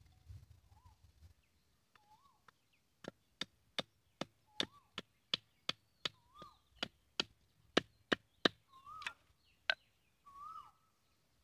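Machete chopping the end of a green bamboo stick against a wooden stump to whittle it to a point: a quick, even series of sharp chops, about two or three a second, starting about three seconds in and stopping near the end.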